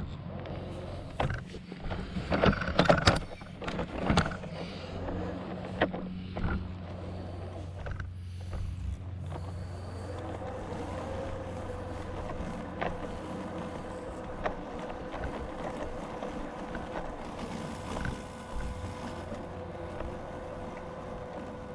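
A small motor running with a steady hum and a steady higher whine, with clattering knocks and rattles in the first few seconds.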